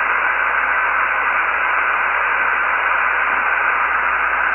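Realistic DX-200 shortwave receiver giving a steady hiss of 80-metre band noise and static on single sideband, with no voice coming through for a few seconds. The hiss is narrow and cut off sharply above the voice range.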